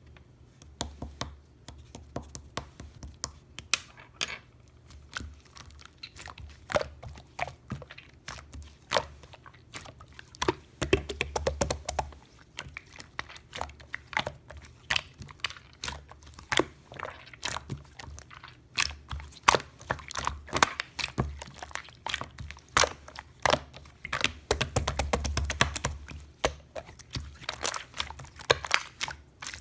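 Irregular crisp clicks, crackles and crunches heard up close, coming thick and fast in bunches, with a low rumble coming and going underneath.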